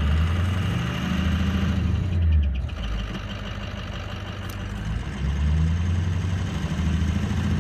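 2004 Ford 6.0 Powerstroke V8 turbodiesel running, the engine note dropping somewhat about two and a half seconds in and rising again about five seconds in. The engine has a bad lifter.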